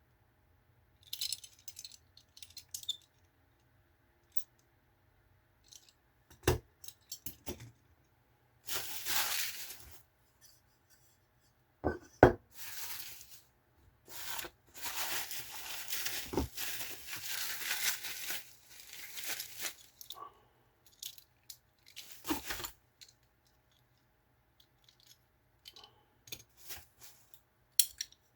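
Packaging being torn and rustled by hand in irregular bursts, with several sharp knocks and small clicks from hard objects being handled and set down.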